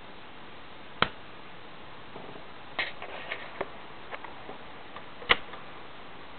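Surface noise of a 25 cm Barclay vinyl record turning under the stylus: a steady faint hiss with scattered crackles and pops, the loudest pop about five seconds in. No music is playing.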